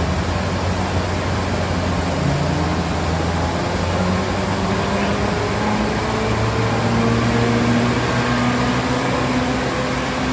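1949 Land Rover Series I's standard 1.6-litre four-cylinder petrol engine running on a rolling-road dyno, together with the noise of the dyno rollers. Its note holds steady at first, then from about four seconds in climbs slowly and evenly in pitch: a full-load power run.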